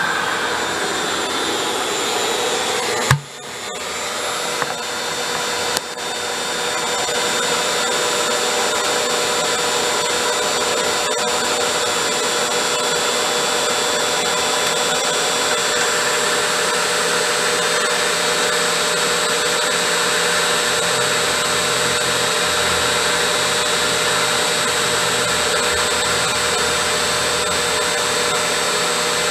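Electric blower on a small wood gasifier running steadily with a high whine, drawing air through the fire. About three seconds in there is a sharp knock, after which the sound dips and builds back up over the next few seconds.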